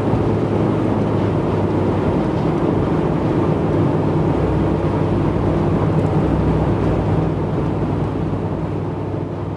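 Steady road and engine noise heard inside the cabin of a moving vehicle at highway speed, a low rumble with a faint even hum, fading out near the end.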